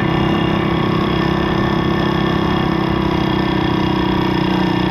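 Pit bike's YX 160cc single-cylinder four-stroke engine running under way at a steady pitch.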